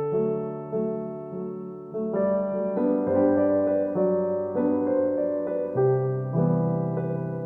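Background music: a soft piano or electric-piano melody of sustained notes and chords at an unhurried pace.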